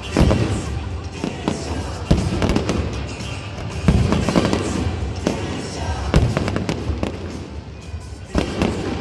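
Aerial fireworks going off in a dense, irregular string of booms and crackles, with the loudest bangs every second or two.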